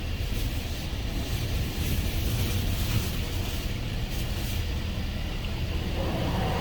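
Rail-track touchless car wash machine running and spraying the car, heard from inside: a steady low rumble under an uneven hiss of high-pressure water, getting louder near the end.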